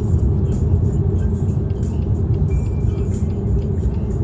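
Steady low road and engine rumble inside a car cabin at motorway speed.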